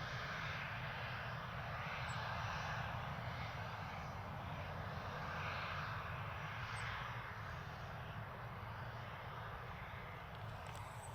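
Gulfstream G550 business jet's two Rolls-Royce BR710 turbofans running at low power: a steady, even jet noise with a low rumble beneath, swelling slightly now and then.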